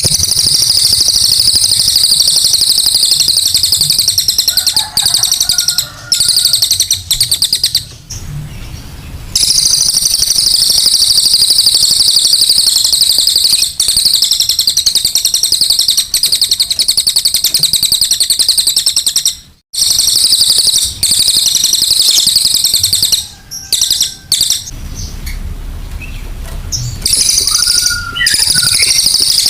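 Cililin singing its rapid, high trilling song in long loud bursts, broken by a few short pauses.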